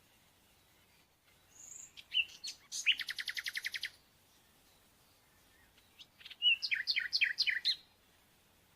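A small songbird singing two phrases of high chirps and whistles. The first, from about two seconds in, ends in a fast trill of evenly repeated notes. The second, about six seconds in, is a run of quick falling notes.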